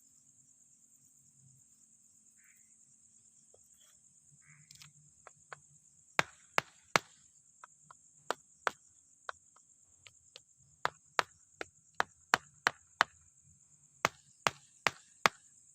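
Sharp knocks of paving blocks being tapped into place with a mallet, about twenty strikes at an uneven pace starting about five seconds in, over a steady high chirring of night insects.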